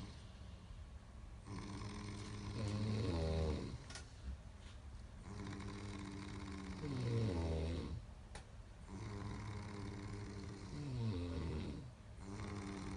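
Snoring: a buzzing, pitched snore on each breath, about every four seconds, three full snores with a fourth starting near the end. Each snore wavers in pitch as it ends.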